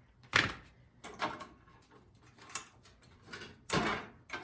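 Irregular clicks and knocks of hand tools and a cover being taken off the engine of an older MTD two-stage snowblower to get at the carburetor, about seven sharp knocks over four seconds.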